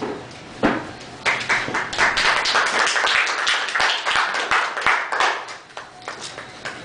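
Audience clapping to greet a speaker who has just been introduced. It starts about a second in and thins out near the end.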